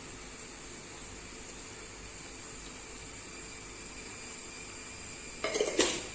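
Soya chunk masala cooking in a pan with a soft steady sizzle that grows slightly louder, under a constant high-pitched whine. Near the end a utensil briefly scrapes against the pan.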